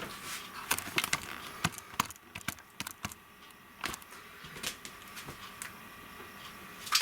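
Irregular light clicks and taps of hand work, several a second at times, over a faint steady high hum.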